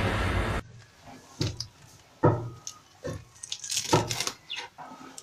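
Kitchen knife chopping spinach leaves on a plastic cutting board: irregular sharp chops, roughly one or two a second. Before them, a loud noisy intro soundtrack cuts off abruptly just over half a second in.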